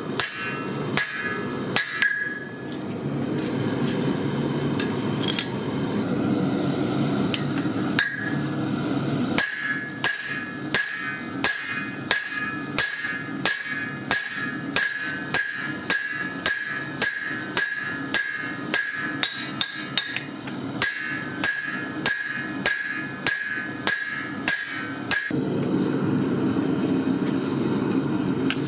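Ball-peen hammer striking red-hot lawnmower-blade steel on an anvil, each blow ringing. A few scattered blows come first, then about a third of the way in a steady run of about two strikes a second that lasts until near the end. Around the sparse blows a steady rushing noise fills the background.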